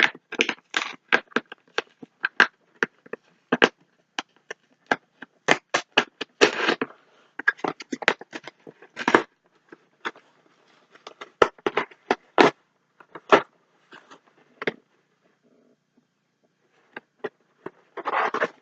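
A shipping package being opened by hand: irregular sharp crackles and scrapes of cardboard, tape and plastic wrapping, with a short pause near the end.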